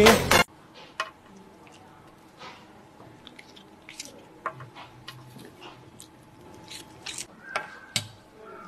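Faint scattered clicks and wet smacks of cats licking and biting at a glass surface from below. The end of a music track cuts off about half a second in.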